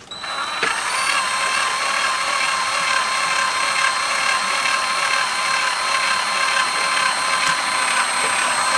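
Power drill running slowly and steadily, a 3.2 mm cobalt drill bit cutting a pilot hole into a snapped engine head bolt, drilled dry without cutting fluid. The motor's steady whine starts as the drill begins turning and holds an even pitch throughout.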